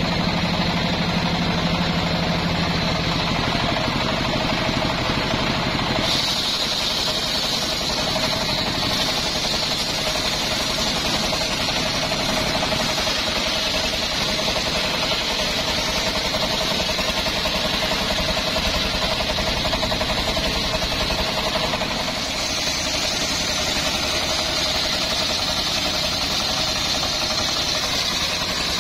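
Engine-driven circular sawmill running steadily, its saw blade cutting lengthwise through a hard jowar (Johar) log. The sound shifts abruptly about six seconds in, with less low rumble and a brighter high hiss, and shifts again a little after twenty seconds.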